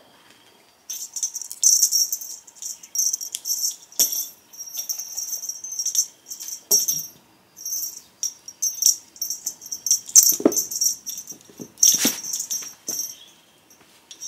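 Feathered bird cat toy rustling and rattling in quick bursts as cats swat and pounce at it, with a few soft thumps on the carpet.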